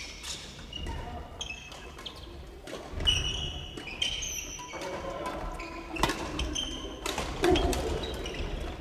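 Badminton rackets hitting shuttlecocks, sharp cracks every second or so, mixed with short high-pitched squeaks of court shoes on a wooden gym floor, in a large echoing hall.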